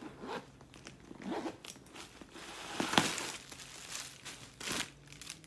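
Zipper on a faux patent leather handbag being pulled open, with rustling as the bag is handled. There are a few short scratchy strokes and one longer, louder zip about three seconds in.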